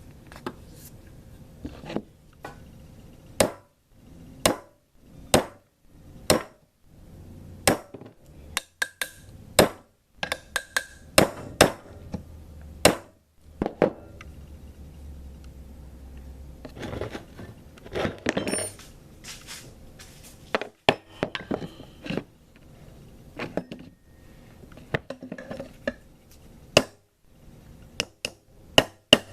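Light hammer taps on steel, irregular and roughly one a second, mixed with metallic clinks, as the taper cross pin is driven into an AR-15 gas block.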